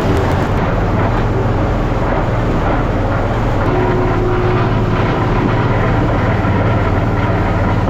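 Engine running steadily at a constant speed.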